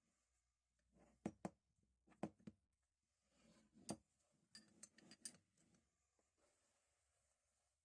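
Steel adjustable wrenches being handled and set down: several light, separate metal clicks and clinks spread over the first five seconds or so.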